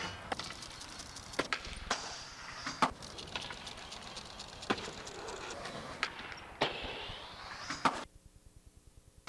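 Skateboard wheels rolling on concrete, with several sharp clacks of tail pops and board landings spread through. It drops to near silence for about the last second.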